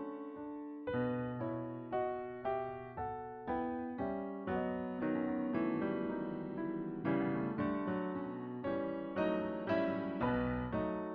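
Solo piano music: a slow run of chords and melody notes, each struck and then fading away.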